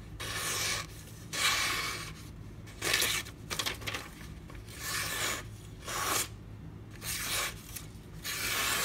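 A freshly sharpened knife, its edge just off a 320 grit water stone, slicing through paper to test its sharpness: about seven separate hissing, tearing strokes, each under a second.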